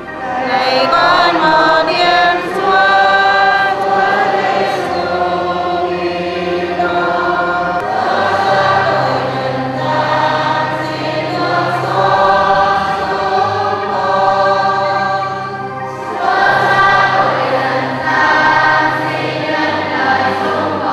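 A church congregation singing a hymn together, over an accompaniment that holds steady low bass notes changing every second or two.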